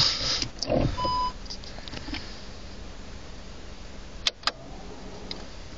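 A VW Passat B6's parking-sensor system gives a single short, steady beep about a second in, as reverse is engaged and the screen switches to the rear camera view. Before it there is a rustle and a low thump, and about four seconds in there are two sharp clicks, over a steady low cabin hum.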